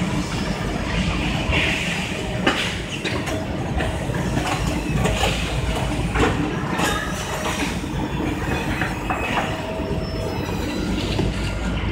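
Factory din from a footwear assembly line: conveyor belts and machinery running with a steady rumble and a faint hum, broken by frequent clatter and knocks.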